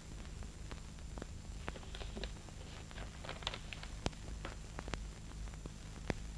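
Steady low hum and hiss with scattered sharp clicks and crackles, a few louder ones near the middle and the end: background noise of a film soundtrack in a quiet passage.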